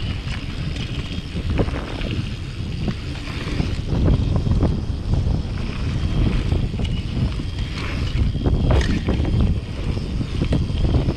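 Downhill mountain bike ridden fast over rough dirt: wind rushing over the camera microphone, with the tyres and the rattling bike under it. Sharp knocks of the bike hitting bumps and landings, the clearest about nine seconds in.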